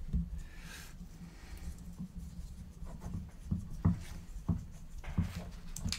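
Fingers fitting small nuts and parts onto a carbon-fibre quadcopter frame: scattered light clicks and taps with rubbing and handling noise, about eight clicks in all. A low steady hum runs underneath.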